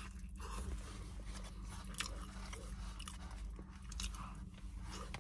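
A person biting into and chewing a foil-wrapped burrito close to the microphone, with scattered sharp crinkles and clicks, over a steady low hum.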